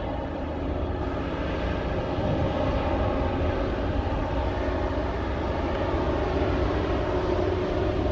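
Diesel locomotives hauling an approaching freight train: a steady engine drone over a low rumble, growing a little louder.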